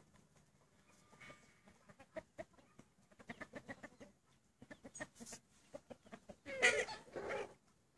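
Australorp hens clucking in runs of short, quick notes, with a louder, harsher two-part sound near the end.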